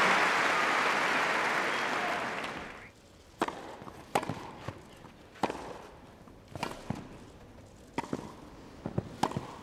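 Crowd applause dying away over the first three seconds, then a grass-court tennis rally: a string of sharp racket strikes on the ball, with ball bounces between them.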